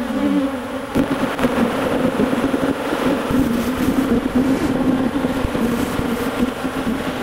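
Honey bees buzzing close around the microphone over an opened hive, a dense, wavering hum whose pitch bends as bees fly past, with a few light knocks.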